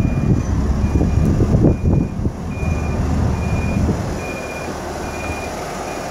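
New Holland LM7.42 telehandler's back-up alarm beeping steadily, a little more than once a second, over its diesel engine running as the machine reverses.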